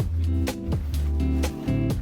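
Background music with a steady beat, about two strong beats a second over a bass line and pitched notes.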